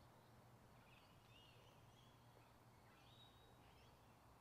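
Near silence: faint outdoor ambience with a few faint, distant bird chirps, one group about a second and a half in and another about three seconds in.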